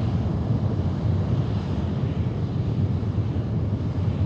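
Space Shuttle Main Engine, a liquid-hydrogen rocket engine, firing steadily on a test stand: a continuous low rumble heard from a distance.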